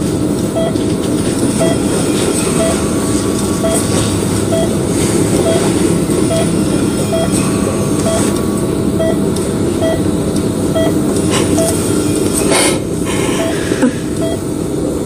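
Bedside patient monitor beeping about once a second, keeping time with the ventilated patient's heartbeat, over a steady low rumbling hum. A brief rush of noise comes a little before the end.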